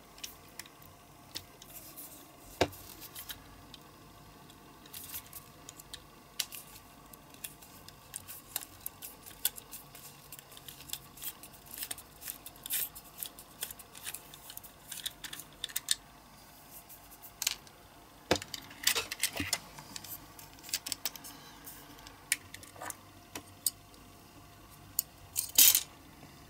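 Irregular small clicks, taps and scrapes of metal and plastic as a diecast toy car is worked apart by hand with a small screwdriver, with a louder clatter near the end.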